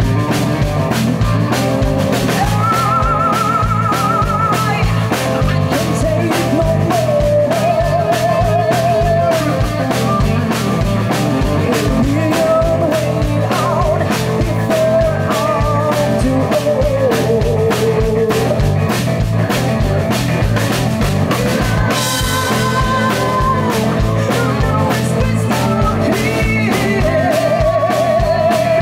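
Live rock band playing an instrumental passage: a drum kit keeping a steady beat under electric bass and electric guitar, with held melodic lines wavering in vibrato. A cymbal crash rings out about three-quarters of the way through, and the lead vocal comes back in near the end.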